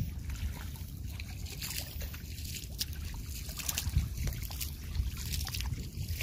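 Small fish splashing and flicking in shallow water pooled in a river drag net: many quick little splashes over a steady low rumble.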